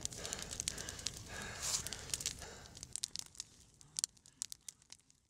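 Campfire crackling and popping. It is dense at first, then thins to scattered pops and fades out near the end.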